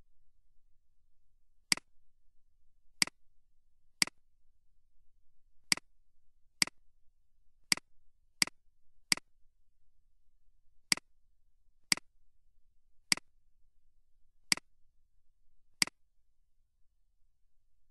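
Computer mouse clicking, about thirteen single sharp clicks at irregular intervals of roughly one to two seconds, as settings are picked in a software dialog.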